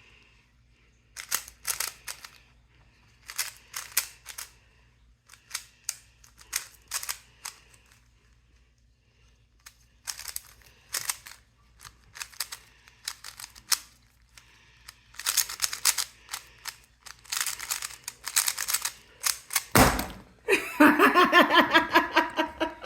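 Rubik's cube being turned fast during a speedsolve: bursts of quick plastic clicks and clacks from the layers turning, with short pauses between the bursts. Near the end there is a single thump, then a voice.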